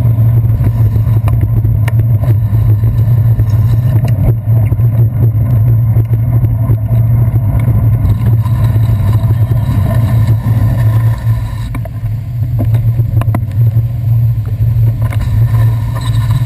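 Steady low rumble of wind and road vibration on a handlebar-mounted GoPro Hero 2 as a bicycle rides down a wet city street, with a few sharp knocks from bumps in the road. Passing traffic adds to the rumble.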